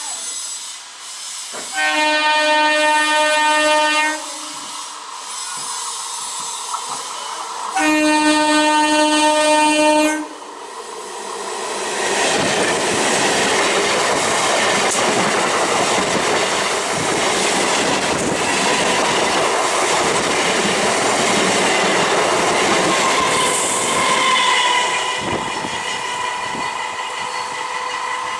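Indian EMU local train sounding two long horn blasts a few seconds apart, then rushing past close by with loud, continuous wheel and coach noise and clatter on the rails. Near the end a thinner steady tone comes in over the rumble.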